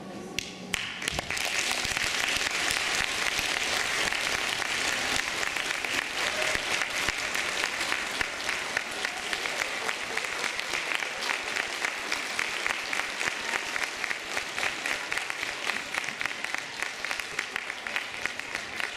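Music stops within the first second, then a large audience applauds steadily.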